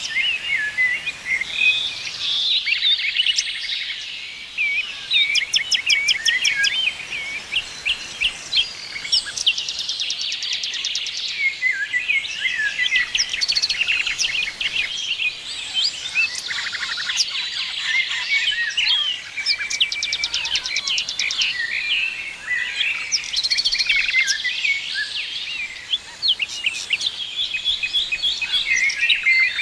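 A chorus of many songbirds singing and chirping at once, with overlapping quick chirps, warbles and repeated high, fast trills.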